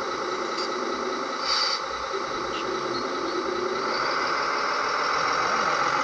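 Scale RC truck's electronic sound module playing a diesel engine running, getting louder over the last couple of seconds.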